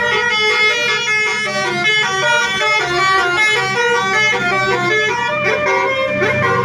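Bus 'telolet' musical air horn playing a fast melody of short tones that jump in pitch, over the steady low running of the bus engine.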